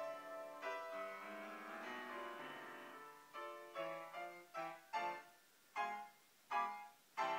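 Grand piano played by hand: about three seconds of held, flowing chords, then a run of separate struck chords that come further apart, closing the piece.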